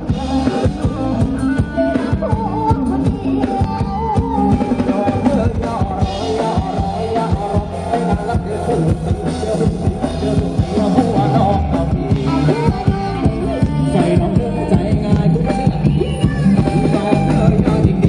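Live Thai sound-truck band music played loud through large speaker stacks: a singer on a microphone over keyboard and drums, with a heavy bass beat.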